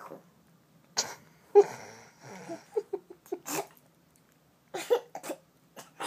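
Repeated hiccups, short sudden catches of breath, the two loudest a second or so in, followed by a run of smaller ones.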